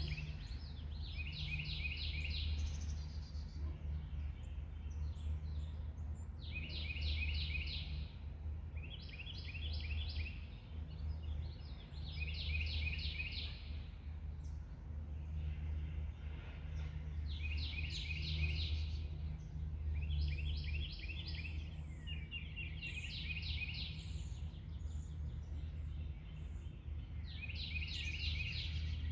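A songbird singing the same short, rapid trilled phrase about eight times, one every few seconds, over a steady low rumble.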